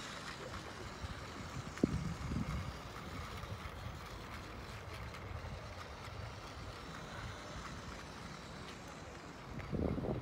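Open-air ambience: a steady low rumble, likely wind on the microphone and distant traffic, with a couple of short bumps about two seconds in and near the end.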